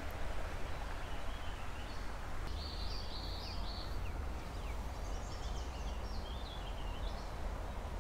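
Steady outdoor noise of a shallow creek flowing, with a low rumble underneath. From about two and a half seconds in, a bird sings in short high chirps and quick downward notes.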